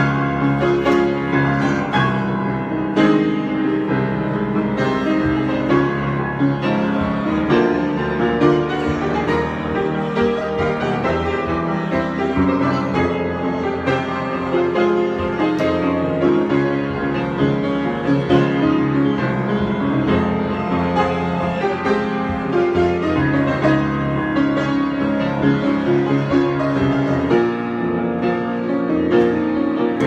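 Grand piano played in a solo improvisation: a continuous flow of chords and runs, many notes struck in quick succession at an even loudness.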